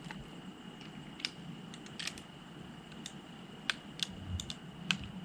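Scattered light clicks and taps, about half a dozen at irregular intervals, from a Colt Anaconda .44 Magnum double-action revolver being handled and readied for shooting.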